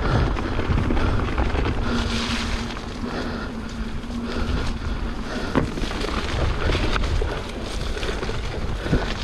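Wind rushing over the microphone of a camera carried on a mountain bike ride down a trail, with the bike rattling underneath. There are sharp knocks about five and a half seconds and nine seconds in.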